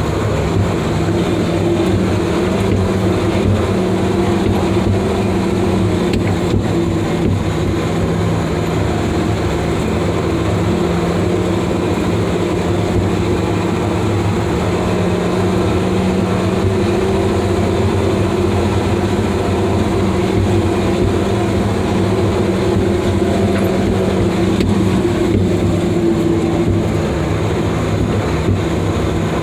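Ten-wheel Badger 670 mobile excavator carrier's 8.3-litre Cummins inline-six diesel engine running steadily under way, a loud even drone at a constant pitch.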